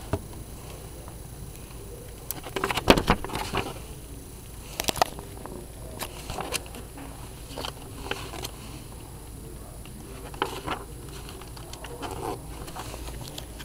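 Yearbook pages being handled and turned: scattered paper rustles and small taps over a steady background hiss, the loudest cluster about three seconds in.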